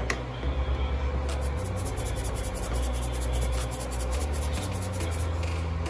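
A plastic spoon stirring and scraping through a thick, cheese-thickened cream sauce in a nonstick pan. A low bass line of background music runs underneath.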